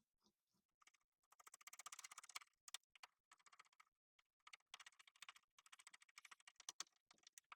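Faint rapid clicking from doorknob screws being twisted in by hand, in two runs: one about a second in and a longer one from the middle to the end.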